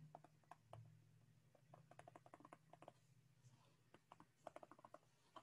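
Near silence with faint, scattered clicks of a stylus tapping and stroking on a tablet screen while handwriting, over a faint low hum.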